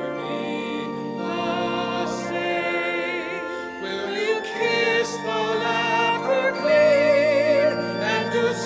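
Church organ playing held chords, with singers joining in: from about three seconds in, voices with a wide vibrato carry a sung melody over the organ, strongest near the end.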